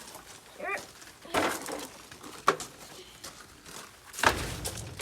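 Plastic toy lawn mowers being handled and passed over: scattered rustling and knocking, a sharp plastic click about halfway through and a heavier thump near the end.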